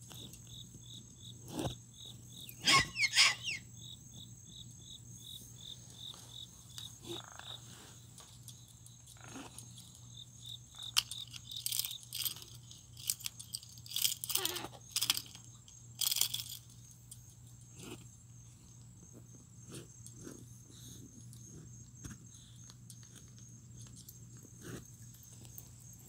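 Crickets chirring steadily in the background, broken by a few loud, sudden calls from pet birds: one bending call about three seconds in and a cluster of sharp sounds between about eleven and sixteen seconds.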